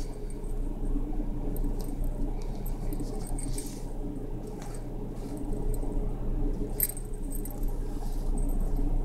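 Yarn and a knitted toy rustling as a smile is stitched into it, the yarn drawn through by hand, with a few faint light clicks and a cluster of them about seven seconds in. A steady low hum runs underneath.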